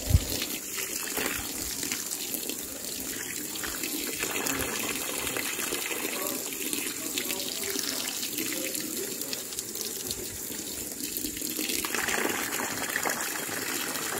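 Water from a garden hose pouring and splashing into a plastic tub of cloth napkins to rinse them, a steady running gush. A brief low thump comes right at the start.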